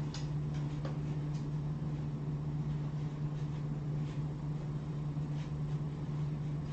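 Steady low hum of room equipment, with a few faint scattered clicks and taps.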